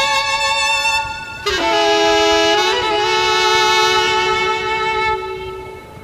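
Background music: a melody of long, held notes that changes note about 1.5 s in, then fades out near the end.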